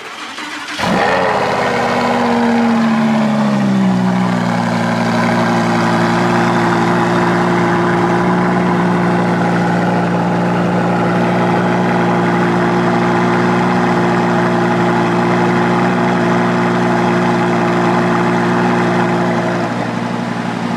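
A Lamborghini's engine starting about a second in. The revs flare up, then fall and settle over the next few seconds into a loud, steady fast idle. The idle eases slightly near the end.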